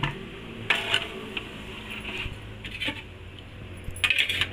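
Metal gas-stove parts clinking and clattering as they are handled: a few irregular clicks about a second in, another near the middle, and a quick cluster of clinks near the end, over a steady low hum.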